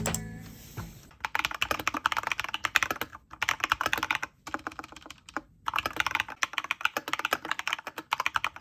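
Mechanical keyboard fitted with pink linear switches and pink jelly keycaps being typed on quickly: dense runs of keystrokes starting about a second in, with a few short pauses between bursts.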